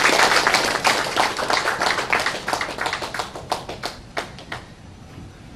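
Audience applauding, dense at first, then thinning to a few scattered claps that die out about four and a half seconds in.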